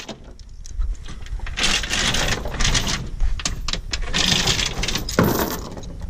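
Steel tie-down chain rattling and clinking in several bursts as it is pulled through the skid steer's tie-down point and its grab hooks are handled, over the wooden trailer deck, with a knock about five seconds in.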